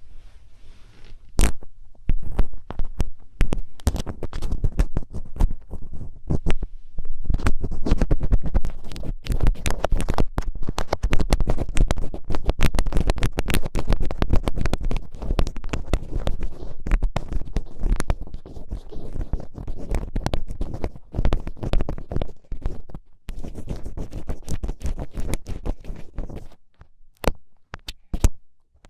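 Thin ear pick scratching and scraping inside an ear canal: a dense run of crackling scrapes with a low rumble, thinning to a few separate scratches near the end.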